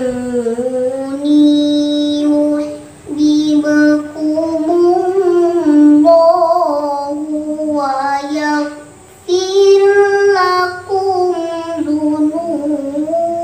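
A young girl's solo voice chanting Quran recitation (tilawah) in long, melismatic melodic phrases in maqam bayati. The phrases break for short breaths about three seconds in and again about nine seconds in.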